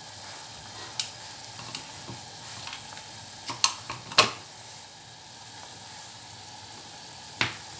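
Pot of broth with meatballs and mushrooms boiling: a steady bubbling hiss. Several sharp clicks sound over it, the loudest about four seconds in.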